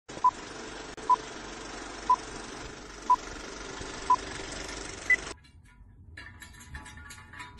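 Film-leader countdown sound effect: five short beeps at one pitch about a second apart, then a single higher beep, over a steady film hiss. The hiss cuts off suddenly about five seconds in, and quieter scattered clicks follow.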